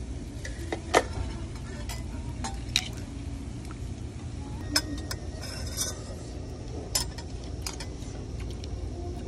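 Metal utensils clinking and scraping against a bowl during a meal: scattered sharp clinks every second or two, the loudest about a second in, over a steady low background hum.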